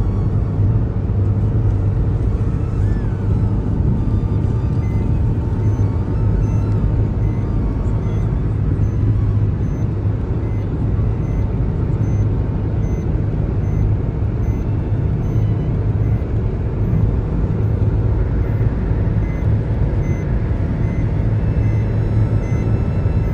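Steady road and engine noise of a car driving on a highway, heard from inside the cabin: a constant low rumble.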